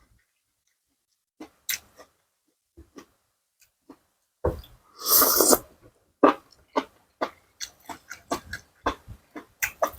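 Close-miked eating: crunchy chewing of fresh vegetables and seafood salad, with a loud noisy mouth sound about five seconds in, then quick crunching bites about two to three a second.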